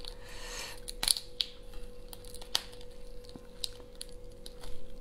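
Raw spiny lobster shell being twisted and torn apart by hand: a crinkly rustle, then scattered sharp cracks and clicks as the tail is pulled away from the body. The sharpest cracks come about a second in and again about halfway through, over a faint steady hum.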